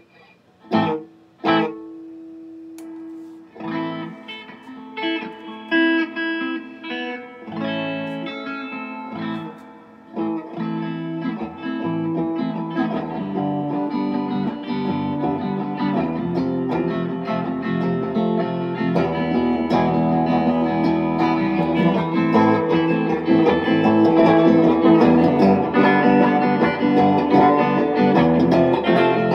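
Electric guitar played through a freshly retubed Fender Deluxe Reverb tube amp: two chords struck about a second in, then broken notes and chords, building from about ten seconds in to continuous playing that grows louder toward the end.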